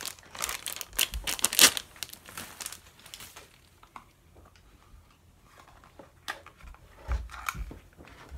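Clear plastic wrapping crinkling and rustling as it is pulled off a soft black carrying case, loudest in the first three seconds. Quieter handling follows, with a few soft knocks near the end.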